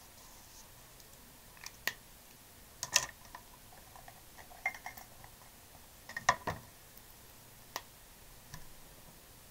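Sharp clicks and light taps of plastic brush pens being handled and set down on the desk, about eight in all, scattered irregularly and loudest around three and six seconds in.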